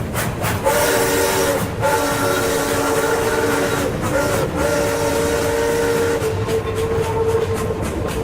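Steam locomotive chime whistle blowing the grade-crossing signal: long, long, short, long, each blast sliding up to pitch as it opens. Rhythmic exhaust chuffs are heard at the start and return after the last blast.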